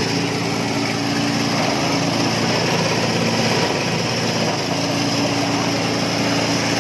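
Compost and organic-waste shredder machine running steadily on a small engine, holding a constant speed.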